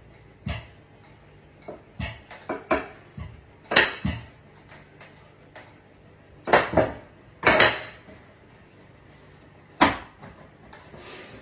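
Wooden rolling pin knocking and rolling against a wooden table while flattening a round of flatbread dough: about ten irregular clacks and thumps, with a sharp knock near the end as the pin is set down.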